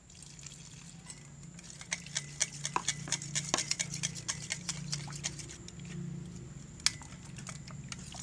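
Quick, irregular clicking and tapping of slime-making containers and utensils as a homemade solution is added to glue, thickest in the middle, with one sharp click near the end, over a low steady hum.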